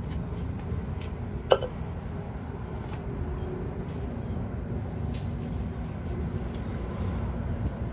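Steady low rumble of vehicle engines and traffic, with one sharp clink about a second and a half in and a few faint ticks from hands at work.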